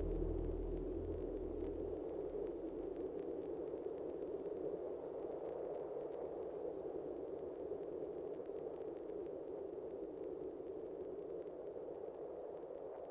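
Closing texture of an ambient granular-synthesis track: a steady, noise-like hiss centred in the low midrange, slowly fading out, with low bass notes that drop away about two seconds in.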